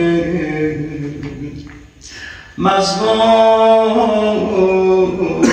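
A man's voice chanting a Shia religious elegy in long, drawn-out held notes, with a short pause for breath about two seconds in before the next sustained line.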